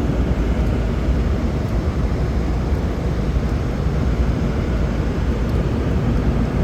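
Steady cabin noise of an airliner in flight, heard from inside the passenger cabin: an even rushing drone of engines and airflow, strongest in the low end.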